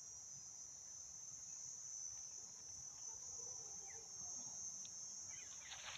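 Faint insect chorus: a steady, high-pitched continuous buzz.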